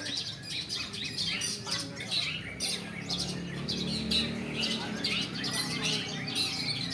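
Several caged songbirds, long-tailed shrikes (cendet) among them, singing at once: a dense, unbroken stream of fast chattering phrases and squawks overlapping one another.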